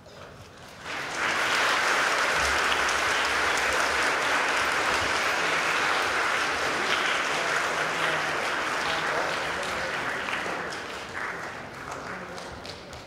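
Audience applauding: the clapping swells about a second in, holds steady, and tapers off near the end.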